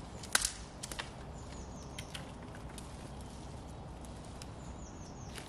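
Dead beech branch snapping with one sharp crack about a third of a second in, then a few smaller cracks and light crunching in dry leaf litter as the wood is gathered. A bird's short high falling calls come twice in the background, the second near the end.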